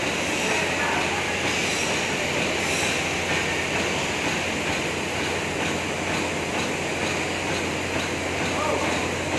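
Tetra Pak carton conveyor line with its straw applicator machine running: a steady, dense mechanical clatter of cartons and machinery over a constant low hum.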